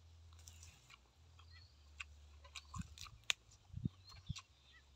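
A person chewing a mouthful of boiled egg and raw leafy greens, with scattered small wet clicks and crunches that come more often in the second half.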